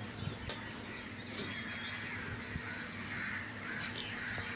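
Birds calling a few times in the background, over a steady low hum.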